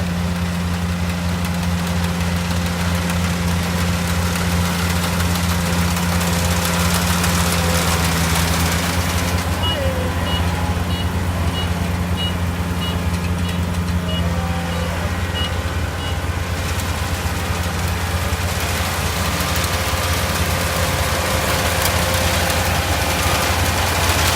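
Kubota AR70 combine harvester's diesel engine running steadily with a low hum. For about six seconds in the middle, a high electronic beeper sounds about twice a second.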